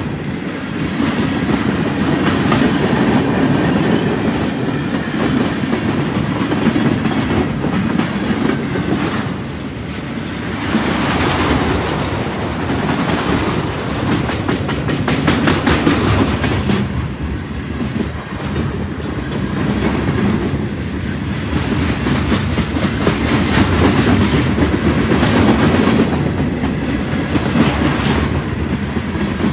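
Freight train cars rolling past at close range: a steady rumble of steel wheels on rail, with repeated clickety-clack as the wheels cross rail joints.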